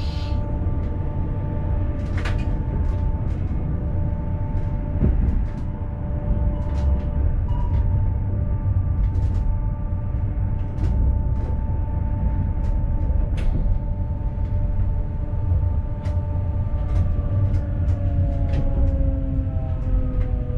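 An ABe 4/12 'Saphir' electric railcar running, heard from the driver's cab: a steady low rumble from the running gear and a steady electric whine from the traction drive, with scattered sharp ticks. Near the end the whine falls in pitch as the train slows.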